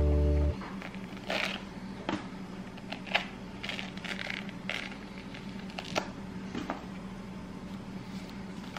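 Background music cuts off about half a second in. Then a tangerine is peeled by hand: soft, irregular crackling and small snaps as the skin is torn and pulled away from the fruit.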